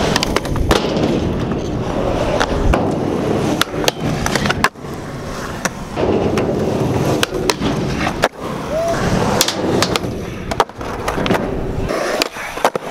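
Skateboard wheels rolling on concrete, with many sharp clacks of the board popping and landing.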